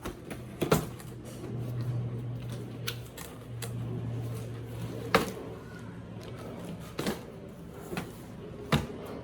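Cardboard boxes and bagged plastic kit parts being handled and moved about, giving scattered knocks and taps every second or two. A low hum runs for a few seconds in the first half.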